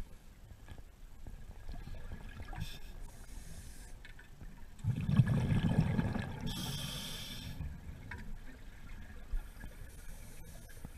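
Scuba diver breathing through a regulator underwater: a loud rush of exhaled bubbles about five seconds in, followed by a short hiss of the next inhalation.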